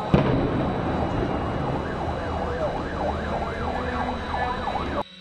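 A siren yelping quickly up and down, two or three times a second, over a dense, steady din of noise. A sharp crack sounds just after the start, and the whole sound cuts off abruptly near the end.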